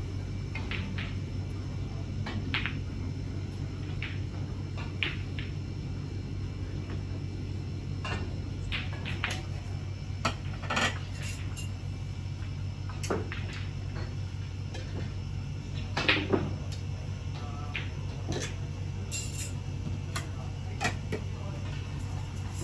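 Snooker balls clicking: sharp, hard knocks of cue on ball and ball on ball, scattered singly or in pairs every second or two, loudest about sixteen seconds in, over a steady low hum.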